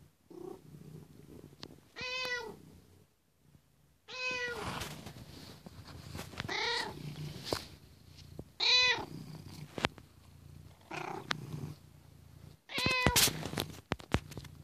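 A domestic cat meowing about six times, one call every two seconds or so, with a steady low purr underneath. A cluster of sharp clicks comes near the end.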